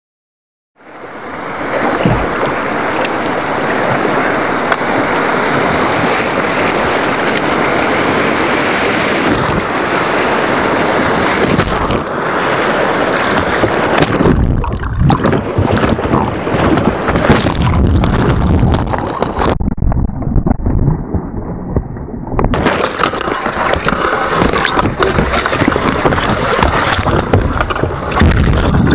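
Rushing whitewater of a river rapid, churning and splashing against a kayak's waterproof camera housing: loud and continuous. About two-thirds of the way through, the sound turns dull and muffled for about three seconds, then the full rush returns.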